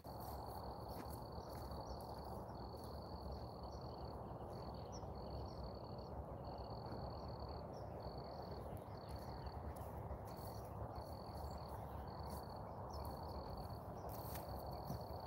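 An insect trilling high and thin in short runs, repeated over and over, over a steady low background noise.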